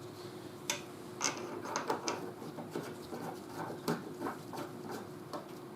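Light, irregular metal clicks and scrapes of a hand rivet nut tool's parts being handled while its mandrel is changed, over a faint steady hum.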